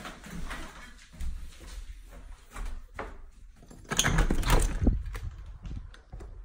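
A door is opened and walked through with knocks and handling noise. About four seconds in comes a louder rattle and clatter as a glass-panelled outer door is pushed open.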